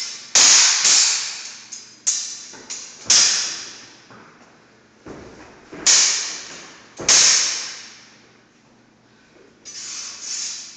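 Longsword and Highland basket-hilted broadsword blades clashing in sparring: a string of sharp clashes at uneven intervals, each ringing and dying away over about a second. The loudest strike about three seconds in and about six and seven seconds in, with lighter clicks near the end.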